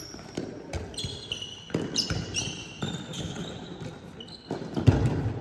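Handball players' shoes squeaking on a sports-hall floor, short high squeaks scattered throughout, with footsteps and a handball bouncing, and a loud thud about five seconds in.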